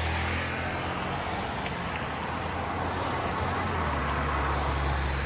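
Street traffic: a steady wash of passing road vehicles, with a low engine rumble that gets louder about four seconds in.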